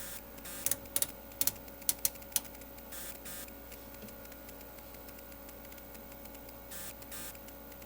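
A series of sharp clicks from switches or buttons being worked on electronic test equipment, about a dozen in the first two and a half seconds and a few more later, over a faint steady electrical hum.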